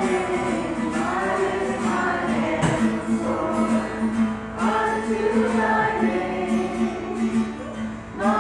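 Several voices singing a gospel worship song together with instrumental accompaniment, over a held low note that pulses a few times a second.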